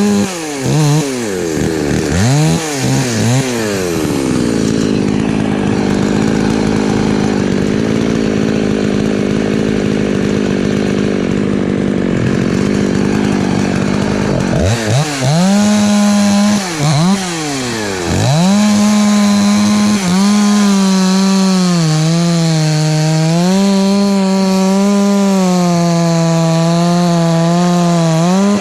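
Husqvarna 254 two-stroke chainsaw revved up and down, then held at full throttle for about ten seconds with a rasping cutting noise as it works through wood. About halfway through it drops off, is revved up and down again, and then runs at high speed with a slightly wavering pitch.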